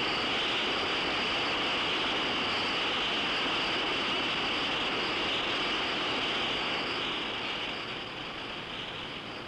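Steady rush of fire in a steel heat-treating furnace, easing off slightly near the end.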